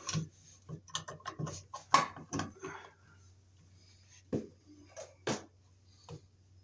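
An old-work electrical box being pushed and worked into a drywall cutout: a quick run of knocks, clicks and scrapes in the first three seconds, then a few separate knocks.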